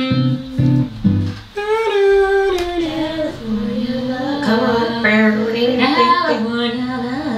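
Music: a few plucked guitar notes, then a voice singing over guitar from about a second and a half in.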